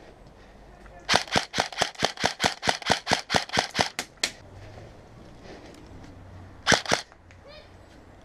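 Airsoft rifle firing a burst of about twenty rapid shots, roughly six a second, over about three seconds, then two quick shots near the end.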